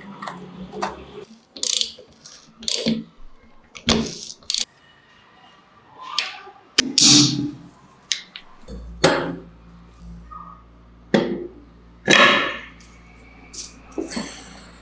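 Metal parts of a vintage Vespa's front wheel hub and drum-brake assembly being handled and fitted on a wooden bench: a string of irregular metallic clinks, knocks and clunks, some sharp and ringing. A faint low steady hum comes in about nine seconds in.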